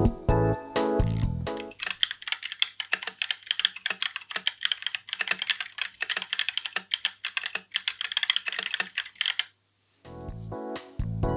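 About two seconds of bossa nova backing music give way to rapid typing on the Kono67 mechanical keyboard: a dense run of crisp key clicks lasting about seven seconds. The typing stops abruptly, and after a brief silence the music comes back near the end.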